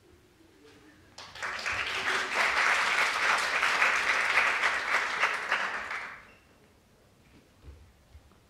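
Audience applauding: a burst of many hands clapping starts about a second in, holds for about five seconds, then dies away.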